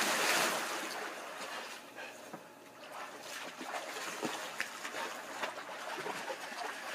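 Pool water from a body's splash-down raining back onto the surface and fading over the first second or so, then water lapping and sloshing with small irregular splashes as the pool settles.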